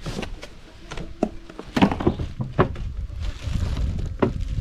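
Cardboard box and packing being handled: irregular knocks, scrapes and crackles about a second apart, over wind rumbling on the microphone.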